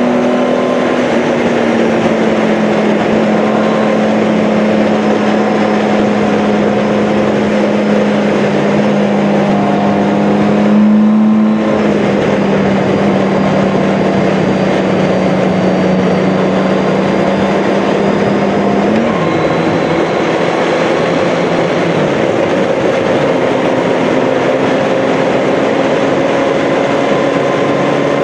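Motorcycle engine running at road speed under heavy wind and road noise. The engine note drifts and steps to a new pitch a few times with gear and throttle changes, with a brief louder swell about eleven seconds in.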